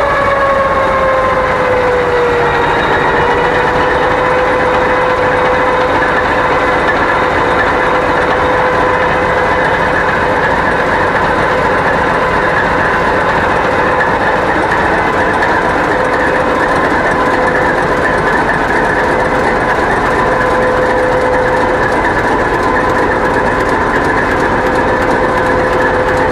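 Kolomna 5D49 V16 turbocharged diesel engine of a DR class 232 'Ludmilla' locomotive, running hard at high revs, heard close up in the engine room. A loud, steady engine sound carries a whine that sinks slightly over the first two seconds and then holds steady.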